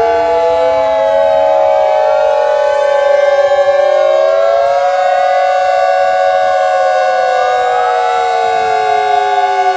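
Several outdoor warning sirens from Whelen, Federal Signal and ASC Alertronic wailing at once. Their loud tones overlap, some gliding slowly up and down in pitch while others hold steady.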